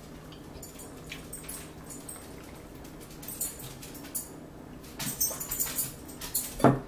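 Close-range eating and drinking sounds at a table: scattered small clicks and smacks, busier in the second half, then a louder short gulp near the end as a drink is swallowed from a plastic cup.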